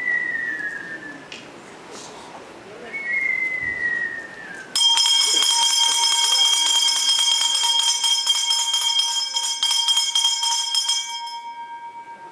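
Two short falling whistles, then a brass handbell rung about five seconds in. Its clapper strikes rapidly and the bell rings steadily for about six seconds before it is stopped and the ring dies away.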